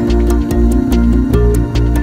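Instrumental background music with a steady beat over sustained low chords.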